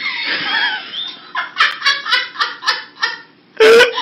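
A person laughing while filming: a high squeal at first, then a string of short "ha-ha" bursts about four a second, and one very loud burst of laughter near the end.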